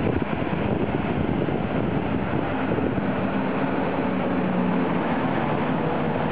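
Train running with a steady rushing rumble, and a low hum that comes in about halfway through and fades near the end.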